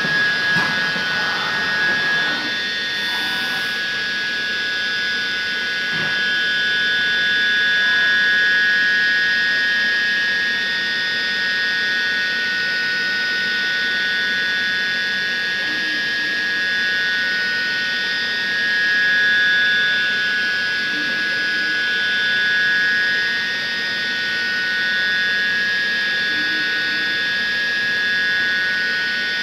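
High-speed spindle of an Anderson NC-1325IP 5-axis CNC router running with a steady high-pitched whine while it mills a polyurethane foam block. The level swells and eases every few seconds as the head moves.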